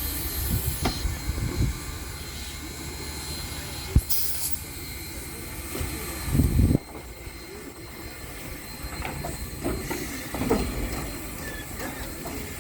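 Southern Railway 4501, a steam locomotive, working at low speed, with rumble, some hiss and scattered metallic knocks, and one sharp knock about four seconds in. A loud low rumble swells a little past six seconds and cuts off suddenly.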